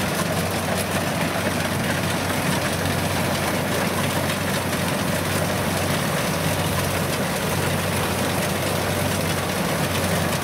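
Kubota DC70 combine harvester's diesel engine running steadily under load as the machine cuts standing rice, a constant low hum with a dense mechanical rush over it.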